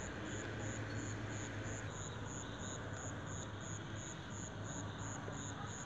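Faint steady background hiss with a low hum, and a faint high-pitched chirp repeating about three times a second.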